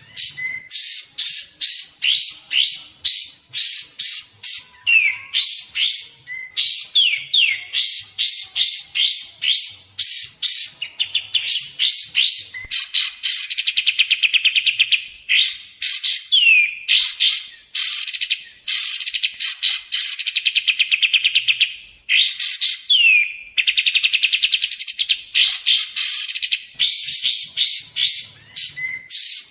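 Kapas tembak song from a lure-call recording: a rapid, continuous run of sharp, downward-sweeping chip notes, several a second. The run is broken three times by stretches of fast, even trilling.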